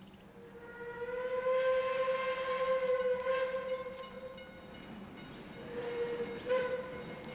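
Steam whistle of an approaching Puffing Billy narrow-gauge steam locomotive: one long blast of about four seconds, then a shorter blast near the end.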